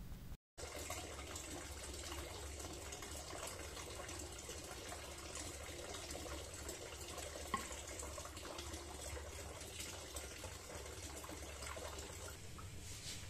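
Steady hissing rush of water boiling in a metal kettle that is steaming tekeli pitha in a cloth over its mouth, with a low hum underneath. A single light click comes about halfway through.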